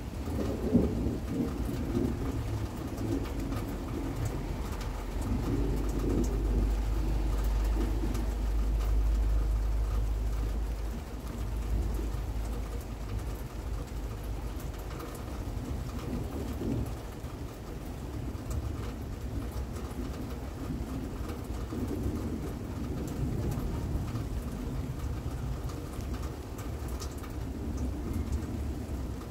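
Steady rain during a thunderstorm, with a long low rumble of thunder swelling from about five seconds in and fading by about eleven seconds. A bird calls now and then.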